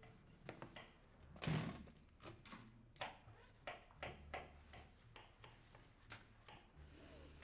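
A door thudding shut about a second and a half in, then a kitchen knife chopping vegetables on a cutting board in short, sharp, irregular taps.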